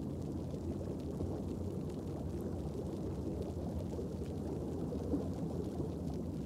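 Underwater ambience: a steady low rumble with faint crackling clicks throughout.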